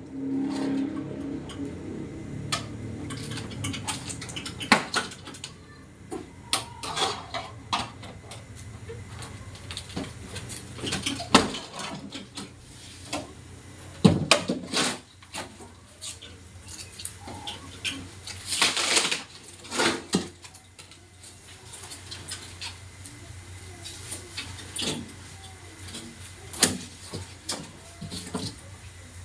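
Irregular clicks, knocks and short clattering of hand tools and metal and plastic parts being worked while a two-door refrigerator's body is taken apart, with a longer scraping rattle about two-thirds of the way through.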